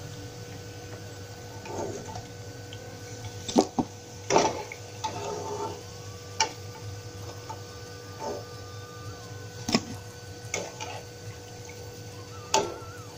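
Fried bitter gourd slices being handled on a tissue-lined steel plate: a handful of sharp, separate clicks and taps, a second or more apart, over a steady background hum.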